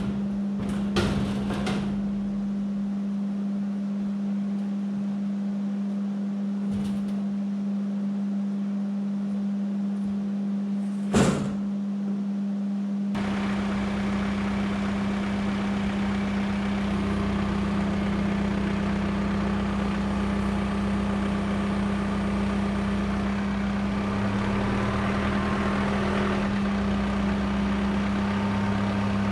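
John Deere 4066R compact tractor's diesel engine running steadily, with a few sharp knocks in the first dozen seconds. From about 13 seconds in, the engine sound becomes fuller, its low rumble shifting.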